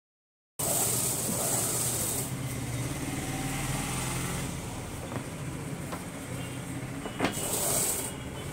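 Hands and a tailor's long scale and L-square sliding over cloth on a cutting table, with a few light knocks as they are set down, over a steady low background hum.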